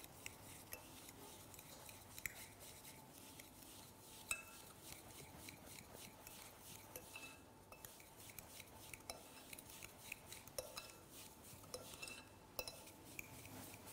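A fork beating a gritty mix of sugar and olive oil in a glass bowl: faint, quick, irregular clinks and scrapes of metal on glass.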